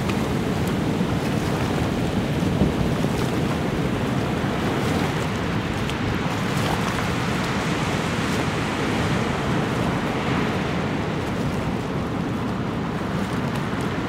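Ocean surf and wind ambience: a steady rushing wash of breaking waves.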